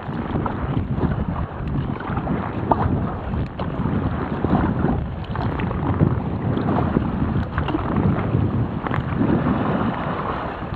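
Strong wind buffeting the microphone in uneven gusts, over waves splashing and sloshing against a sea kayak in rough water.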